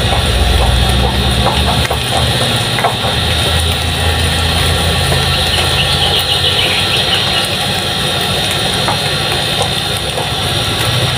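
Stone pestle grinding and knocking in a stone molcajete, crushing roasted chiles with garlic and salt, heard as scattered short clicks. Under it runs a steady low mechanical hum, the loudest sound throughout.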